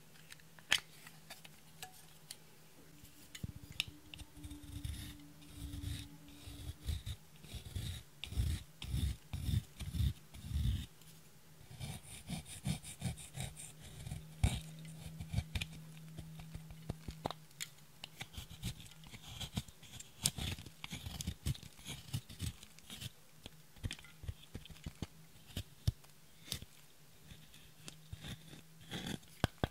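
Small plastic spatula scraping and crumbling pressed powder eyeshadow out of its plastic compact, with many sharp clicks and taps of plastic on plastic. A run of dull knocks comes in the first third.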